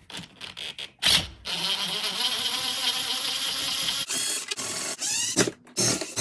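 Cordless drill fitted with a T15 Torx bit, backing out screws: a sharp click about a second in, then a steady motor whine for a few seconds, followed by a shorter run that rises in pitch as the drill speeds up, and another run near the end.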